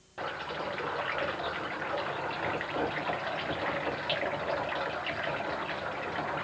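Water running steadily from a tap and splashing, starting suddenly just after the start.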